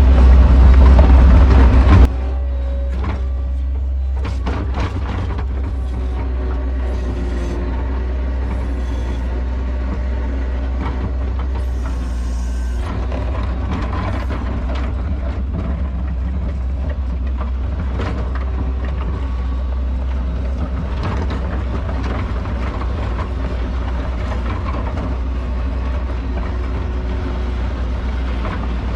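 New Holland L150 skid steer engine running while plowing snow, louder for about the first two seconds and then settling to a steady drone, with occasional short knocks from the machine and bucket.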